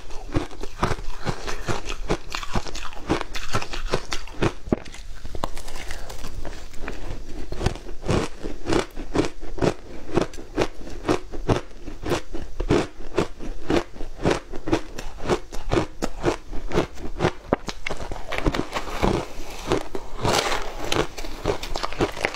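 Close-miked crunching and chewing of frozen shaved ice dusted with matcha powder, in quick, even bites of about three to four crunches a second.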